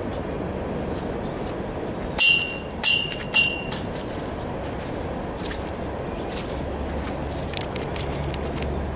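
Three sharp metal clanks with a ringing tone, about half a second apart, from the steel hydraulic pallet stacker as it is handled, a couple of seconds in.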